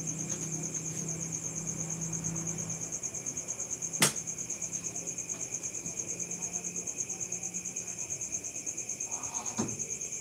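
A cricket trilling steadily, a fast even pulse of high chirps. A single sharp click about four seconds in.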